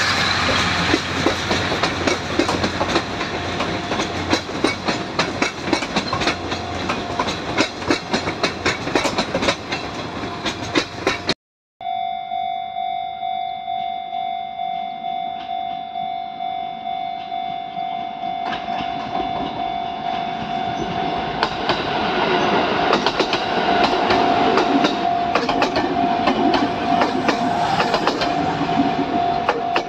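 Chichibu Railway trains passing at close range. First the Paleo Express's red 12-series coaches roll by, wheels clattering steadily over the rail joints. After a sudden cut, a 6000-series electric train runs in over a steady pulsing tone, its wheels clacking louder near the end.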